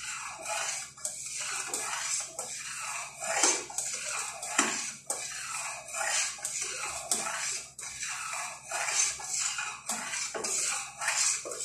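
Metal spoon stirring a wet mixture of pinipig (pounded young rice) and milk in a stainless steel pot, with repeated scraping, sloshing strokes.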